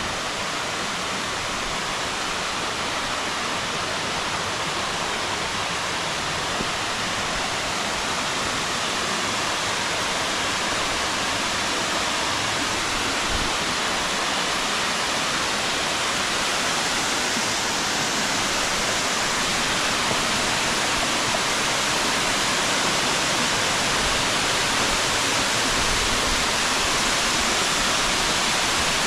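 Steady rush of water from a wide 20-foot waterfall, growing slowly louder.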